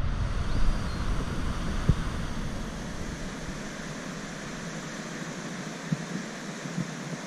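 Wind blowing over the microphone: a steady hiss with low buffeting that eases after the first few seconds, and a few faint thumps.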